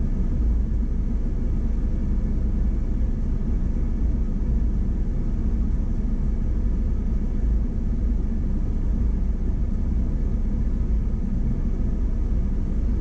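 Steady low rumble of an off-road vehicle's engine, heard from inside the cab.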